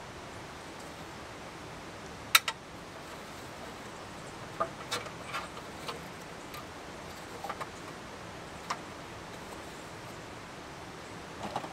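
Clicks and knocks of a JetBoil cooking cup and stove parts being handled and set down on a folding camp table: a sharp double knock about two seconds in, the loudest sound, then a scatter of lighter clicks. Under it, the steady rush of a river.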